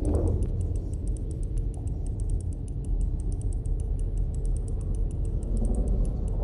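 Low, steady droning rumble with a rapid, faint high ticking running over it, several ticks a second; a short falling whoosh sounds right at the start.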